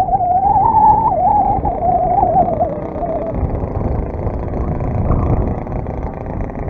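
35cc NGH gas engine of an RC plane running in flight, its note wavering, then sliding lower and fading about three seconds in, under heavy wind buffeting on the microphone.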